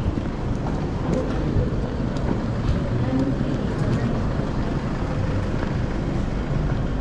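Busy city street ambience: a steady rumble of traffic with faint voices and occasional small clicks.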